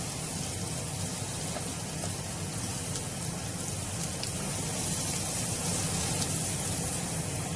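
Chopped onion frying in hot oil in a pan, a steady sizzle with a few faint ticks.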